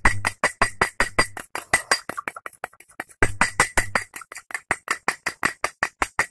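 Plastic spoon clicking and scraping quickly against a small ceramic bowl, stirring a thick paste of ground cinnamon and egg yolk, about six or seven strokes a second.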